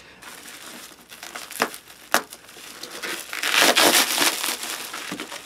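Plastic mailing wrap crinkling as a parcel is torn open by hand, with two sharp snaps in the middle and a louder burst of crinkling and ripping about three and a half seconds in.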